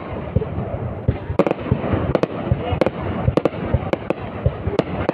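Aerial fireworks going off in quick succession: sharp bangs, about two a second at irregular spacing, over a continuous noisy rumble and crackle.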